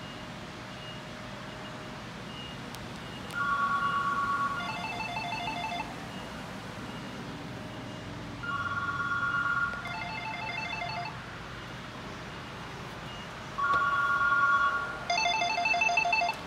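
Electronic telephone ringer ringing three times, about five seconds apart. Each ring is a steady two-note tone followed by a fast warbling trill.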